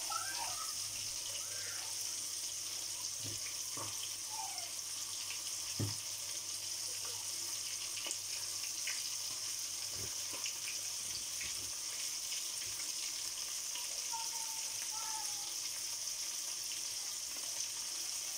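Milkfish (bangus) frying in oil in a pan: a steady sizzle with a few scattered pops, the sharpest about six seconds in.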